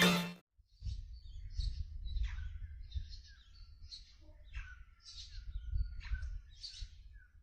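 Small birds chirping, a dozen or so short high chirps in loose succession starting about a second in, over a low rumble.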